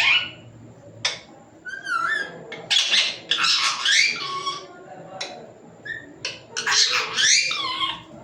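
A pet parrot calling in a high, squawky voice, mimicking speech-like words in several bursts; the longest come about three seconds in and near the end.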